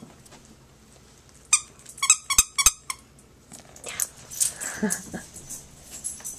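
Squeaky Angry Birds dog toy squeaking about six times in quick succession, followed by softer scuffling noise.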